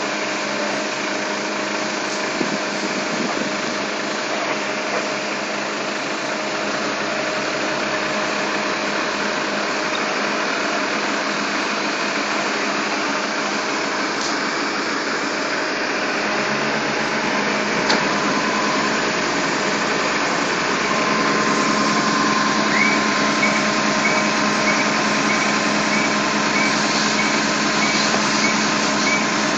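Fire engine's engine running its pump with a steady drone, feeding water to the hose lines laid out from the truck. It gets louder about two-thirds of the way through, when a steady higher tone joins in.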